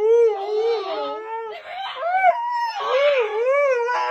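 Siberian husky whining and howl-talking in an excited greeting: a run of wavering, rising-and-falling calls, one after another.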